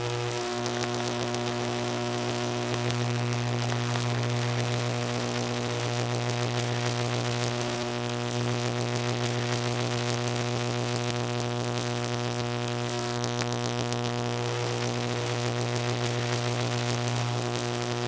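Electrical buzz: a steady low hum with a ladder of higher overtones and a crackling hiss over the top, swelling slightly in level now and then.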